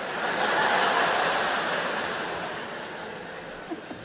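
A large theatre audience laughing after a punchline, swelling in the first second and slowly dying away.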